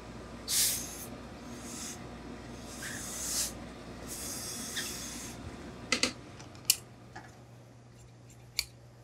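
Hose-fed industrial steam iron letting out short hisses of steam, four bursts in the first five seconds or so, while pressing a suit jacket's front panel. A few short sharp knocks follow later.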